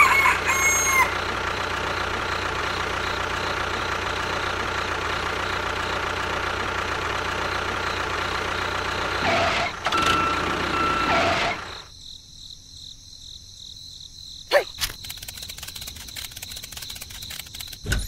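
A model tractor's engine runs steadily, then cuts out sharply about twelve seconds in. A few short pitched calls sound at the very start, a brief tone comes about ten seconds in, and a single click follows near the end.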